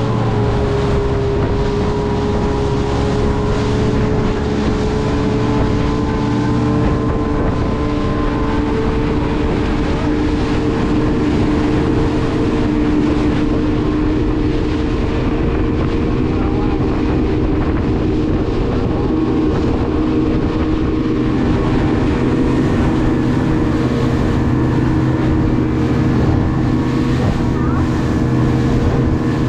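Speedboat engine running steadily at speed, with the continuous rush of water and spray off the hull.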